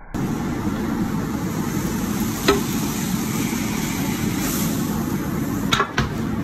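Steady rushing noise of a working kitchen, with a sharp knock about two and a half seconds in and two quick clicks near the end, like utensils against a plate or pan.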